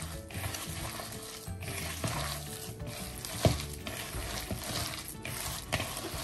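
Hand squeezing and mixing a wet lentil-and-onion batter in a plastic bowl, a squelching, crackling sound in repeated strokes with short pauses between them. A single sharp knock sounds about three and a half seconds in.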